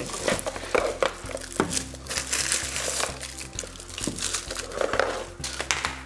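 Clear plastic wrapping around a pair of small speakers crinkling and rustling as they are handled and lifted out of a cardboard box, with a few light knocks of the box.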